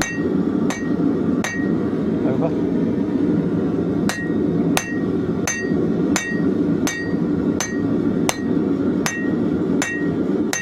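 Rounding hammer striking a leaf-spring steel knife blank on an anvil, drawing out the blade, each blow ringing. Three blows, a pause of a couple of seconds, then a steady run of blows about three every two seconds, over a steady rushing noise.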